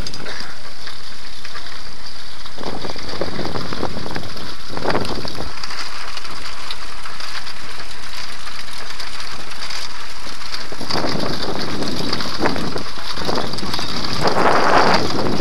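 Handbike rolling over cobblestones: a constant rattling rumble from the wheels and frame shaking over the stones, with irregular louder surges, the strongest near the end.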